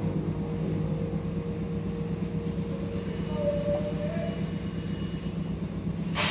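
Steady low hum and rumble of machine-shop machinery running, with a short rising whine about three and a half seconds in and one sharp knock near the end.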